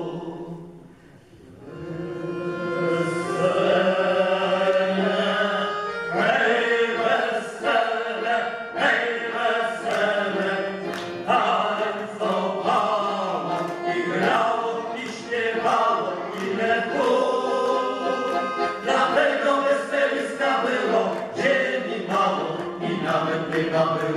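Music with singing voices over a steady accompaniment; the music dips briefly about a second in, then comes back up and carries on.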